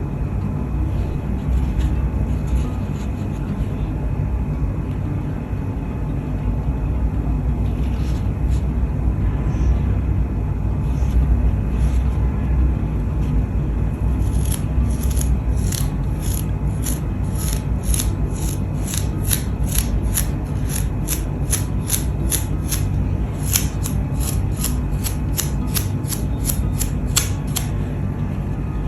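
Paintbrush bristles flicked again and again to spatter paint: a crisp tick about twice a second, starting about halfway in, over a steady low hum.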